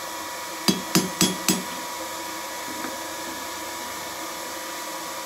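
Hand hammer striking the red-hot rivet at the pivot of forged knife tongs on the anvil: four quick blows, about a quarter second apart, starting about a second in, peening the rivet closed. A steady hum runs underneath.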